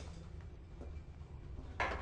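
A low, steady background hum, with a short breathy hiss near the end.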